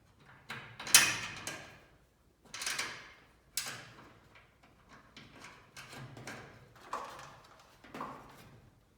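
Metal parts and tools being handled on a steel garage door panel: a handful of separate clanks and scrapes, the loudest about a second in.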